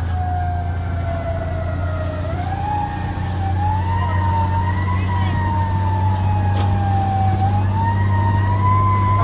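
Fire truck siren wailing, its pitch sinking slowly and then climbing back up twice, over the steady low rumble of the truck's engine.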